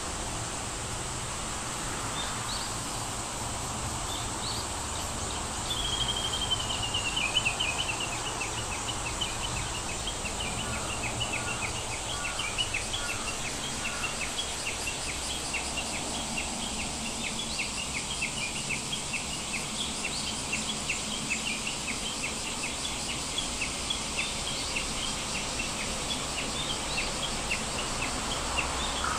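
Outdoor nature ambience: bird calls over a steady hiss, with a falling trill about six seconds in, then a long run of quick, high, repeated chirps and a few lower whistled notes in between.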